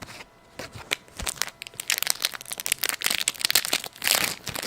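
Hockey card pack wrapper being handled and crinkled, with a few scattered clicks at first and then dense, continuous crinkling from about two seconds in.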